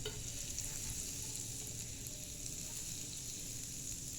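Butter sizzling on a hot dosa pan: a faint, steady hiss.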